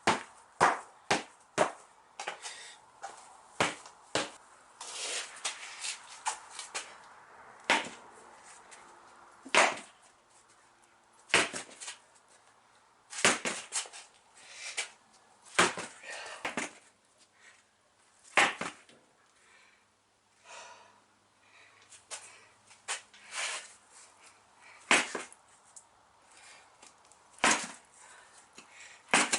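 Irregular sharp knocks and taps on a Model T wheel rim as the bead of a 30 x 3.5 inch clincher tyre is worked into its seat, some in quick runs and others a few seconds apart.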